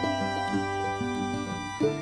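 Instrumental background music: a melody of separate pitched notes, each starting sharply and changing every fraction of a second.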